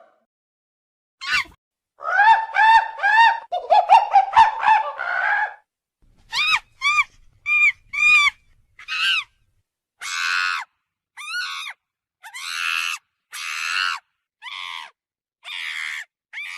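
A monkey calling. It gives a fast run of short, high calls that rise and fall in pitch, then separate chirping calls, then a string of longer, harsher calls.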